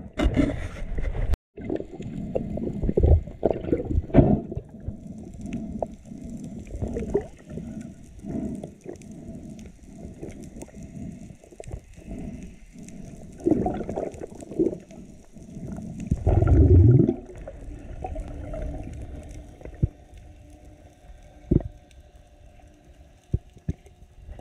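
Muffled underwater noise from a diver's action camera: low water rushing and irregular dull thumps as the freediver moves and kicks, with one louder surge about two-thirds of the way through.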